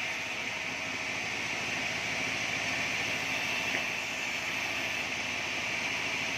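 Band sawmill running with a steady, even hiss that holds unchanged throughout.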